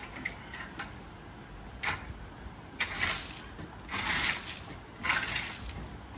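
Shovel scraping into loose crushed stone and tipping it into a wheelbarrow: gritty scoops of gravel about a second apart, four in all.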